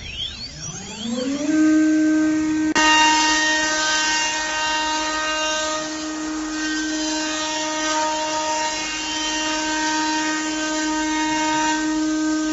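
A 5-axis CNC router's spindle spins up with a rising whine, then runs at a steady high whine with a hiss under it. There is a click about three seconds in.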